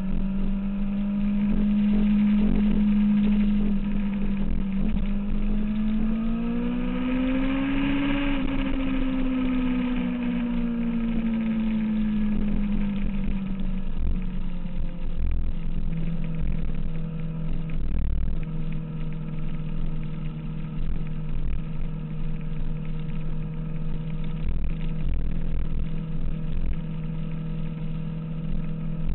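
2006 Kawasaki ZX-6R inline-four engine running on the move. The engine note climbs as the bike accelerates about six to eight seconds in, eases back down over the next few seconds, then holds a steady cruising drone. A low rumble with occasional thumps runs underneath.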